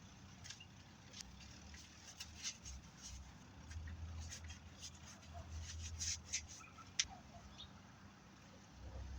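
Scattered faint clicks and ticks over a low hum, with one sharper click about seven seconds in.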